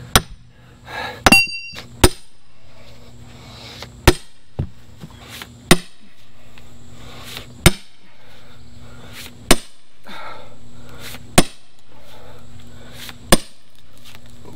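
Splitting maul striking a steel wedge set in a large oak round, sharp metal-on-metal blows about every two seconds, one with a brief ringing clang. The wedge is not splitting the round; it keeps bouncing back out of the tough wood.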